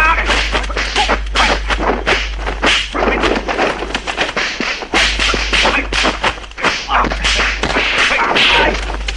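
Kung fu film fight sound effects: a rapid run of punch and kick impacts and swishing strikes, several a second.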